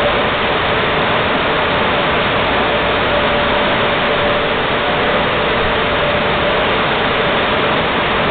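Loud, steady rush of car wash machinery, with a steady whine running through it.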